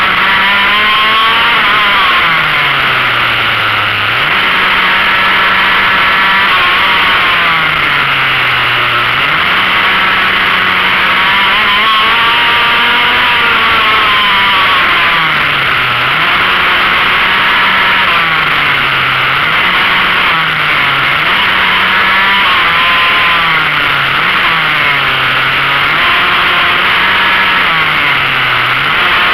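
Onboard sound of a pocket bike (minimoto) engine lapping a circuit: it holds high revs on the straights, and about seven times its pitch falls as it slows for a corner, then climbs back up. A steady rush of wind and road noise runs under it.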